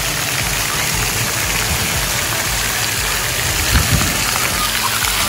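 Splash pad water jets spraying and spattering onto the wet surface: a steady hiss of falling water, with a couple of brief low bumps about four seconds in.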